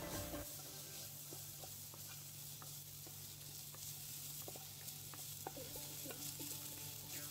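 Wooden spatula stirring and scraping onion, garlic, ginger and spices frying in oil in a non-stick pan: a faint sizzle with scattered light taps and scrapes of the spatula, over a steady low hum.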